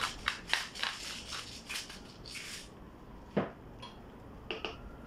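Hand salt grinder being twisted, a quick run of ratcheting grinding clicks, about four a second, for the first two seconds. A single sharp knock follows about three and a half seconds in.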